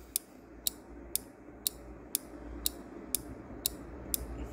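Quiz countdown timer ticking, a sharp click about twice a second, over a faint steady background hum.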